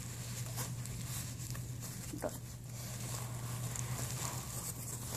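Paper towel rustling and crinkling as it is handled, with a low steady hum underneath.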